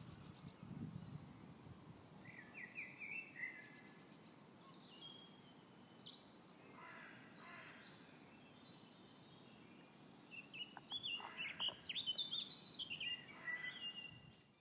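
Wild birds chirping and calling, many short quick notes, several sweeping downward in pitch, over a faint steady hiss of outdoor background noise. The calls grow busier and louder near the end, then the sound cuts off abruptly.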